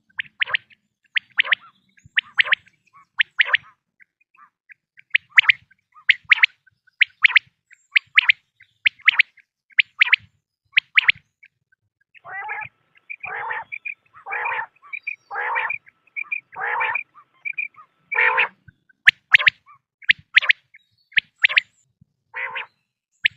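Quail calling over and over in short, sharp, high notes about one or two a second. Partway through, longer and lower notes alternate with short high ones, and then the quick sharp notes return near the end.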